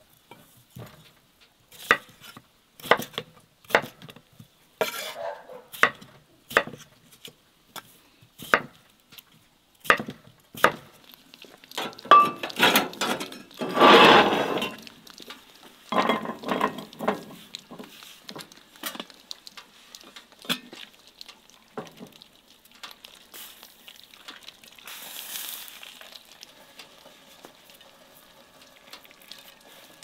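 A knife chopping peeled potatoes on a thick wooden cutting board: a run of sharp knocks, about one a second. Partway through there is a louder rattling stretch, as the potato wedges are slid off the board into a metal pot. After that come a few more knocks, and then it goes quieter.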